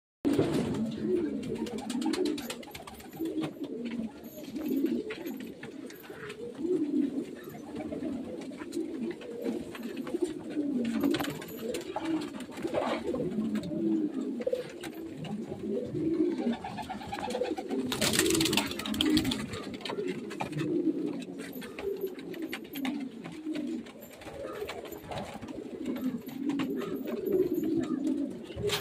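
Homer pigeons cooing over and over, several calls overlapping and wavering in pitch. About eighteen seconds in comes a brief noisy rustle lasting about a second.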